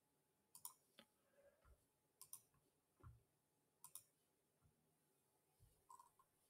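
Faint computer mouse clicks, several of them, many as quick press-and-release pairs, against near silence.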